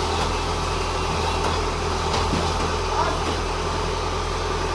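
Engine idling steadily with a low, even hum, with a few faint metallic knocks about two to three seconds in.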